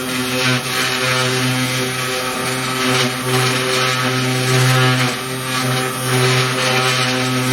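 3018 benchtop CNC router's small DC spindle running at full speed with a steady hum and whine while the cutter mills into wood, the sound swelling and dipping as the machine moves through the cut.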